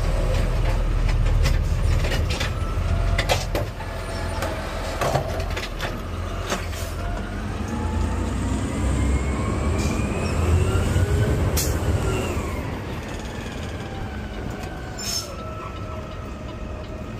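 Garbage truck heard from inside the cab while driving: a steady low engine rumble with a whine that rises as the truck picks up speed and falls as it slows toward the next carts. Scattered clicks and rattles run through it.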